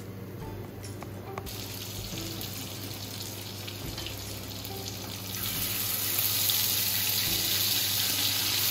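Mutton chops sizzling in hot oil on a flat tava griddle. The sizzle starts about a second in and grows louder about five seconds in as more chops are laid on the pan, over a low steady hum.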